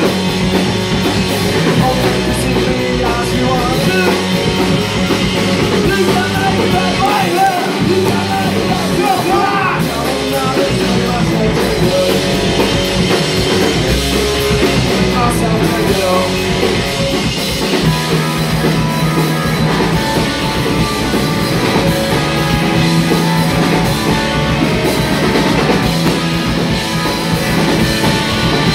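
Live punk rock band playing loudly in a small room: distorted electric guitars over a drum kit, with occasional singing.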